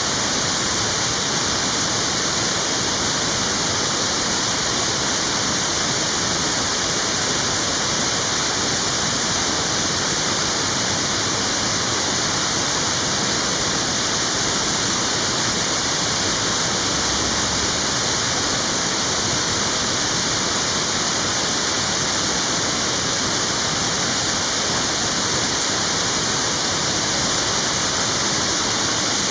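Loud, steady rush of water pouring down a waterfall: a dense, even hiss with no break or change.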